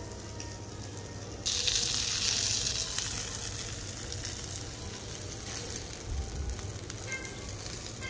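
Beef katsu set on the hot plate of a small tabletop grill, sizzling. The hiss starts suddenly and loudly about a second and a half in, then fades to a softer steady sizzle.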